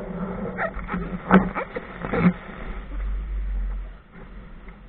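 Water and wind noise on a Laser dinghy's deck in shallow surf, with three sharp knocks in the first couple of seconds and a deep rumble of wind on the microphone between about two and a half and four seconds in.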